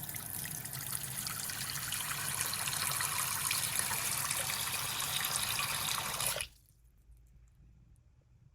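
Water from a single-handle waterfall bathroom faucet pouring into the sink basin, getting a little louder about two seconds in, then stopping suddenly about six and a half seconds in.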